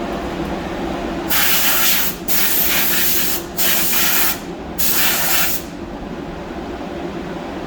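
Compressed air hissing out in four short bursts, a gun being triggered on and off, over a steady machine hum.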